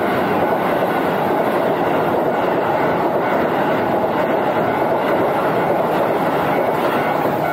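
Keihan Electric Railway electric train passing close by without stopping, a loud, steady rush of wheels on rail.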